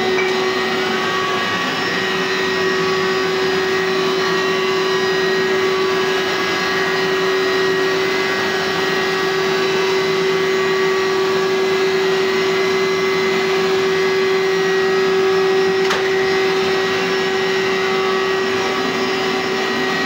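Hoover SteamVac WidePath carpet cleaner's motor running steadily with an even, unchanging whine.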